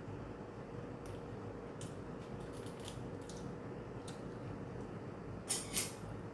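Quiet clicks and taps of food and containers being handled at a mukbang meal, over a steady low hum, with two short crackling noises about five and a half seconds in.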